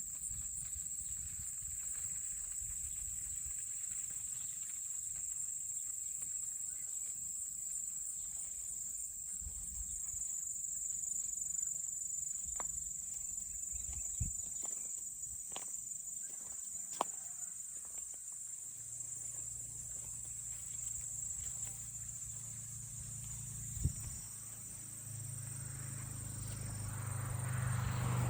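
Late-summer insect chorus: a steady, high-pitched continuous trill. A few sharp clicks come in the middle, and a low rumble grows louder near the end.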